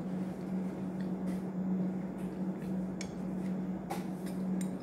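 A steady low electrical hum, with a few light clicks and knocks of a ceramic mug and tableware about three to four seconds in.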